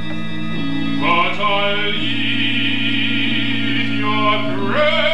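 Live opera-style stage music: sustained low chords under a singing voice that slides up into long held notes with vibrato about a second in, and again near the end.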